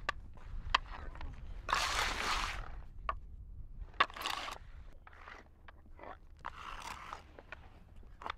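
Wooden hand boards of prostrating pilgrims knocking on the asphalt road and sliding with a scrape as bodies are laid flat. There are several sharp knocks and a few longer scrapes.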